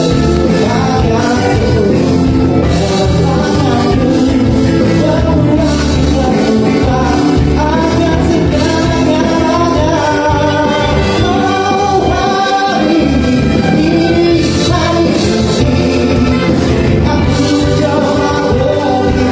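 Live band playing a song with a lead vocalist singing over bass and drums, loud and continuous; the low end drops out briefly about two-thirds of the way through.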